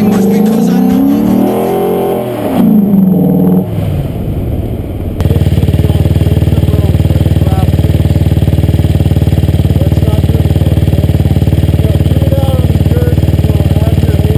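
Honda TRX450R quad's single-cylinder four-stroke engine revving up and down for the first few seconds. After about five seconds it settles into a steady idle with a fast, even pulse.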